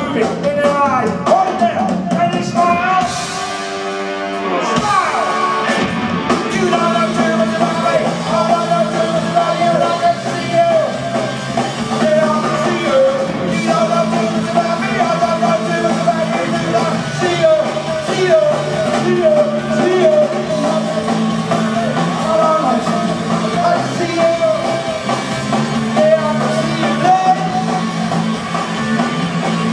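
Live rock band playing through a PA: electric guitar, bass guitar and drum kit with sung vocals, with a brief dip in loudness about four seconds in.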